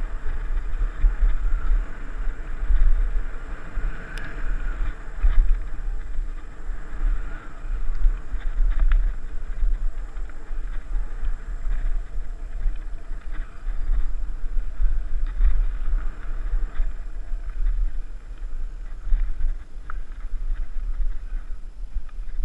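Mountain bike rolling fast down a dirt trail: steady rumble of tyres on packed dirt and gravel under heavy wind buffeting on the microphone, with a few short clicks and rattles.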